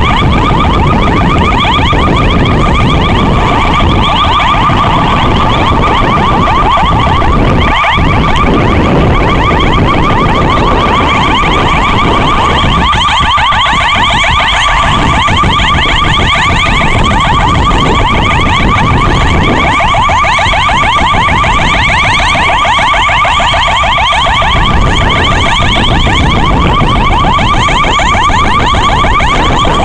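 Electronic siren of a VW Crafter ambulance on an emergency run, sounding without a break in a fast, rapidly wavering yelp over the rumble of traffic.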